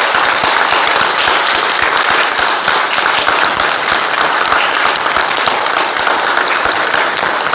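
Audience applauding steadily, a dense crackle of many hands clapping with no break.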